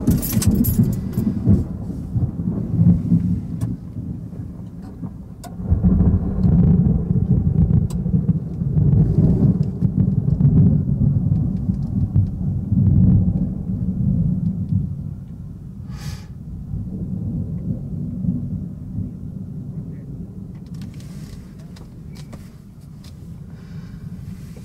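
Thunder rumbling in a long low roll that swells sharply about six seconds in and then slowly dies away.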